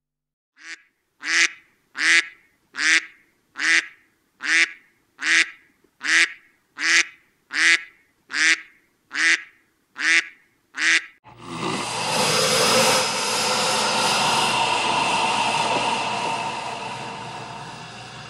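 An animal gives a series of about thirteen short, sharp calls, evenly spaced about three-quarters of a second apart. About eleven seconds in, they give way to a loud, dense, continuous din.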